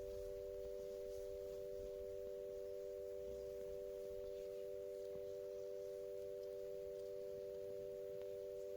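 A steady chord of a few pure electronic tones, held without any change in pitch or level, like a sustained background drone.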